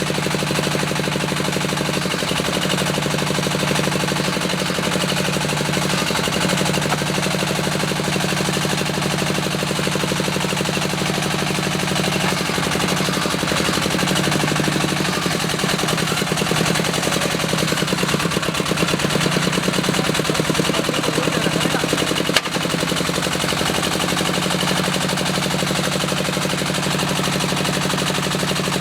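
The diesel engine of a small bore well drilling rig runs steadily under load with a rapid, even knocking beat, driving the rig's hydraulics and mud pump. One brief sharp click comes late on.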